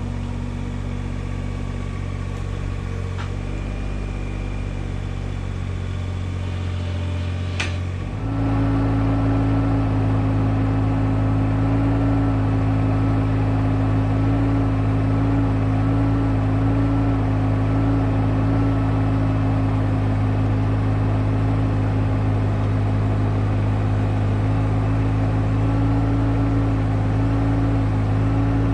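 IHI 20NX mini excavator's diesel engine running at a low steady speed, then a click and about eight seconds in it steps up to a higher, louder speed that holds steady.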